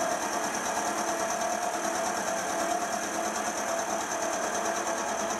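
Sieg X2.7L mini mill running with an end mill cutting a slot into a cast iron block: a steady machine whine with a high tone over the cutting noise.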